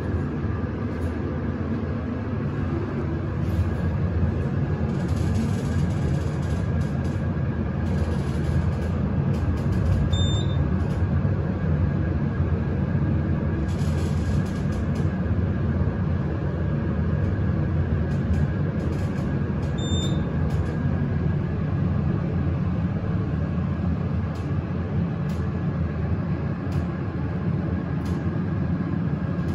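Montgomery elevator car in motion: a steady low rumble and hum from the ride and drive motor, with a thin, steady high whine over it. Two short electronic beeps sound about ten seconds apart.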